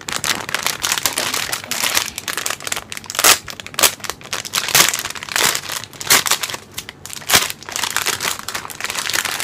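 Thin plastic packaging bag crinkling and crackling as it is handled and opened, with several sharp, louder crackles.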